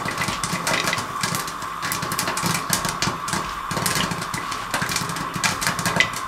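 Popcorn kernels popping fast and unevenly inside a covered pan with a glass lid, a dense run of sharp pops over a steady hum. The corn is still mid-pop and the pan is heaped with popped kernels.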